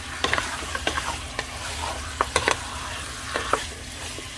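Chicken pieces sizzling in hot oil with onion and garlic as they are stirred, a utensil clicking and scraping against the pan many times.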